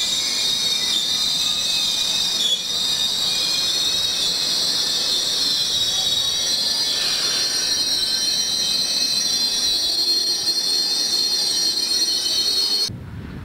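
Passenger train coaches rolling slowly along a station platform with a steady high-pitched squeal of several held tones from the steel wheels. It cuts off suddenly near the end.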